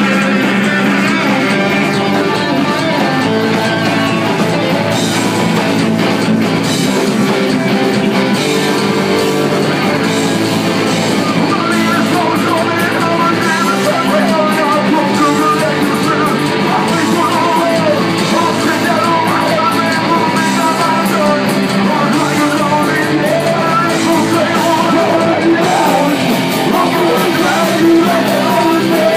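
A live band playing a song on electric guitars and drums, with a singer's vocals coming in about twelve seconds in.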